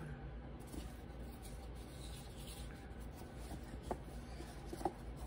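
Firm foam liner rubbing and scraping against the cardboard of a tarot deck box as it is pushed back inside, with a couple of faint clicks near the end.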